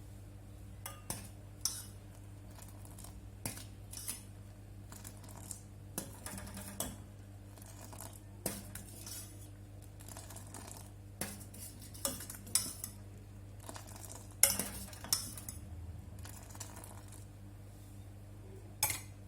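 Metal kitchen utensils clinking and knocking against cookware in irregular strokes, with the loudest knock a little after halfway. A steady low hum runs underneath.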